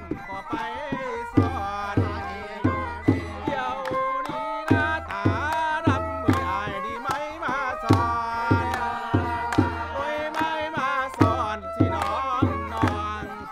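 Two-string bowed fiddle playing a gliding, wavering melody over steady rhythmic hand-clapping, about two claps a second.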